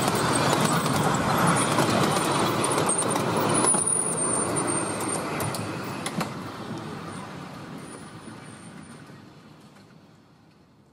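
Miniature-railway passenger carriages rolling along 10¼-inch gauge track, their wheels rumbling on the rails with a few clicks. The rumble fades steadily as the train moves away.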